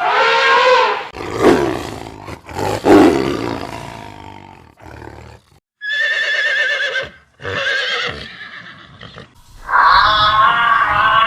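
Animal calls in sequence: two short, loud roars, then a horse neighing three times with a quavering pitch.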